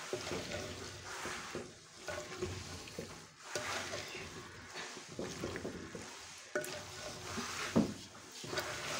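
A spoon stirring and scraping a mix of potatoes, peas and radish pods around a clay handi, with irregular scrapes and a few sharper knocks against the pot, while the vegetables sizzle.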